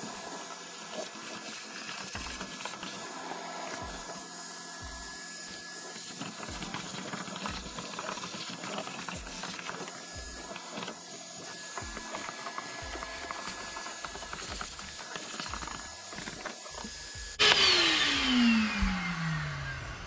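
Shop vacuum running with a steady whine as its hose is worked over the bare floor pan, sucking up dirt and debris. Near the end the motor is switched off and winds down in a louder, steadily falling whine.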